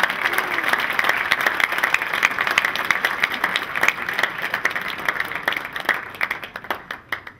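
An audience applauding, a dense run of hand claps that thins out and dies away near the end.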